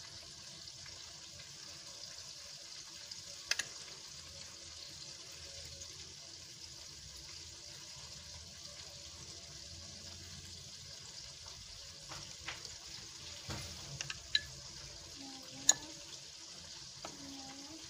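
Metal spoon scraping and lightly clicking against a ceramic bowl and plate as sauce is spread onto burger buns, a few short clicks over a steady hiss.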